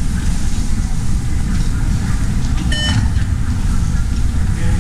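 Metro fare gate giving one short electronic beep about three seconds in as a ticket is tapped, over a loud steady low rumble.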